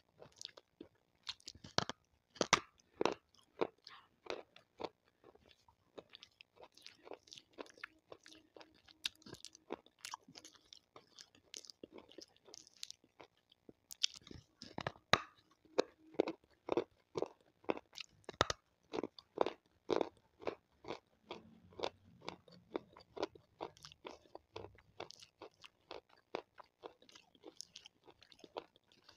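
Close-miked crunching and chewing of water-soaked white slate stone: many sharp, brittle crunches, loudest about halfway in as the slab is bitten.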